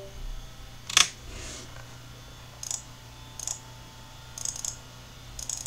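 Computer mouse clicks: one sharper click about a second in, then several light double clicks, over a low steady hum.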